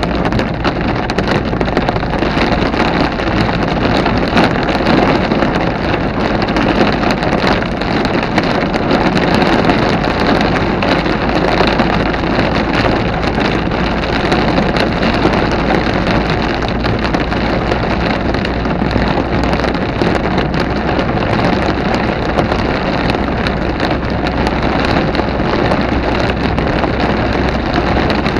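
Thunderstorm rain and wind: a loud, steady rushing noise with wind buffeting the microphone.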